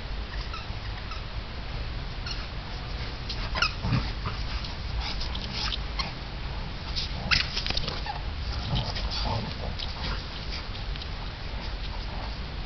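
A St. Bernard and a smaller spotted hound play-fighting, making scattered short, sharp dog noises, the loudest about four and seven seconds in.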